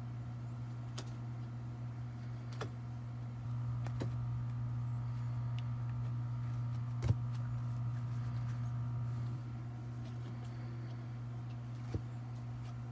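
A steady low hum runs throughout and grows louder for several seconds in the middle. Over it come a few soft clicks and taps as baseball cards are flipped through by hand, one card at a time, with one sharper click about seven seconds in.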